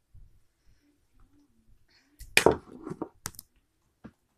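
Homemade slime being squeezed and poked, giving a short cluster of wet pops and clicks about halfway through, then a couple of single sharper clicks near the end.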